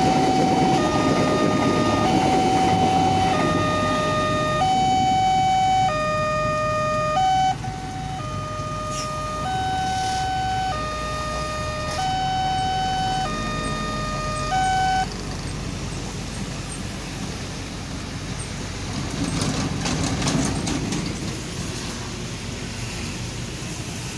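Railway level-crossing warning alarm sounding a two-tone electronic chime, high and low notes alternating about once a second, over the hiss of heavy rain. The alarm stops about fifteen seconds in, as the crossing reopens, leaving rain and passing traffic.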